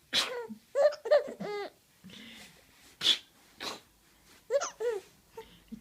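Three-month-old baby laughing in short high-pitched bursts, about a second in and again near the end. Sharp breathy bursts of noise come in between.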